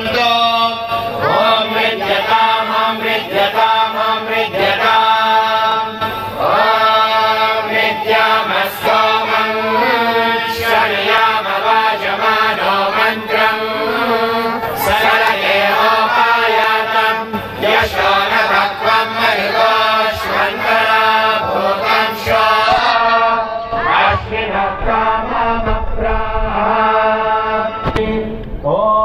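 Group of devotees singing kirtan, a devotional mantra chant sung by many voices together, with brass hand cymbals (karatalas) striking along.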